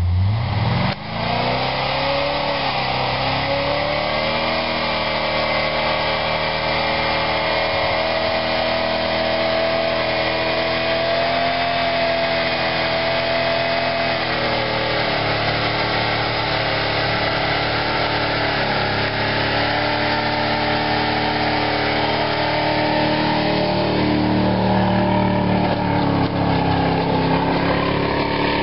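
Willys pickup truck's engine working hard under load as it pushes through deep snow: it revs up in the first couple of seconds, holds at high revs for about twelve seconds, then rises and falls as the driver works the throttle.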